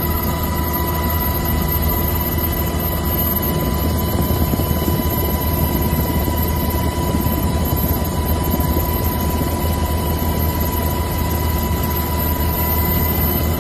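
Helicopter cabin noise from inside the aircraft: a steady low rotor and engine drone with a thin whine held on one pitch, unchanging throughout.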